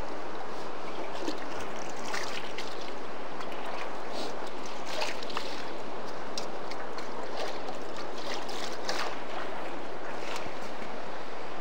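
Mountain river rushing steadily, with a few faint clicks over it.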